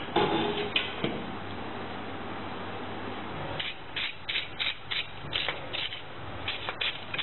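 Handling noises: a few sharp knocks and clicks, then a run of short scraping clicks at about two a second, over a steady low hum.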